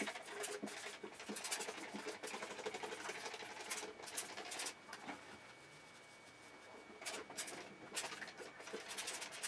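Hands rubbing and scrubbing shampoo into a cocker spaniel's wet coat make a quiet scratchy sound, and a plastic spray bottle gives a few short hissing spritzes near the end.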